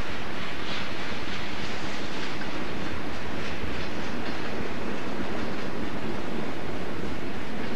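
Freight cars rolling past: covered hoppers and tank cars, a steady rumble of steel wheels on rail with irregular clicks as the wheels cross rail joints.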